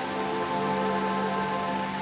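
Steady rain falling, with soft ambient music of held sustained tones laid over it.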